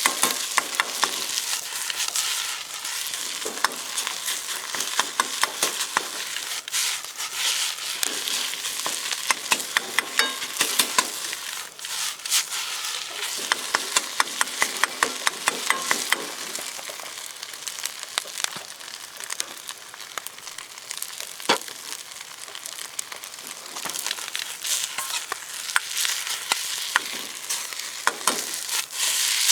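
Fried rice sizzling in a Uniflame camp wok while it is stirred and tossed, with a steady high sizzle and many sharp clicks and scrapes of the utensil against the wok, coming in quick runs.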